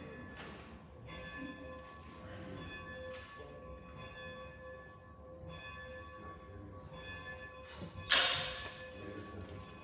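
Church bells ringing: sustained bell tones hang in the air with lighter strokes about once a second, and one much louder strike rings out and decays near the end.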